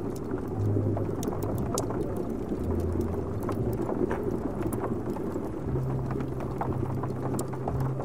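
Layered tavern ambience: a steady low rumbling hum under an indistinct murmur, with frequent small crackles and ticks from the wood-stove fire and rain on the window.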